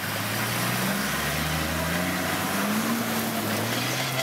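Open safari vehicle's engine labouring as it drives through a shallow river, with water splashing and churning around the wheels. The engine pitch rises and falls slowly.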